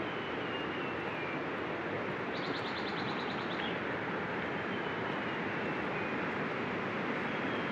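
River water rushing steadily. A short high trill comes about two and a half seconds in, lasting about a second.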